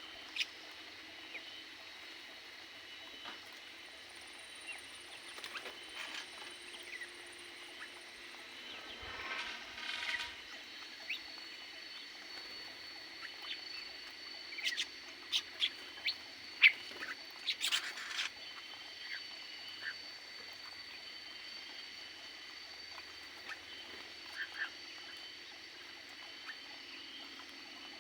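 Aviary birds chirping: many short, sharp chirps scattered through, busiest after the middle, with one longer harsh call about nine seconds in.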